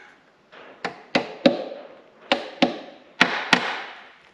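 Seven sharp hammer taps in quick groups of two and three, on the number six connecting rod and piston of a spare engine being stripped down, each tap with a short ring-off.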